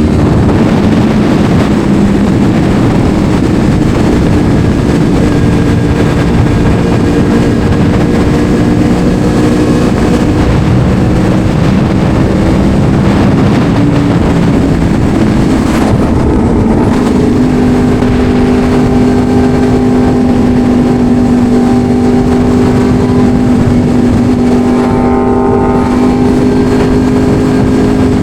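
Motorcycle engine running at a steady cruise under heavy rushing wind noise. About sixteen seconds in, the engine note shifts and settles onto a new steady pitch.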